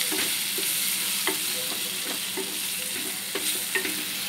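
Eggs sizzling in hot oil in a kadhai as a wooden spatula stirs and scrambles them into the onion and tomato masala for egg bhurji. Short scrapes of the spatula against the pan come every half second or so over a steady sizzle.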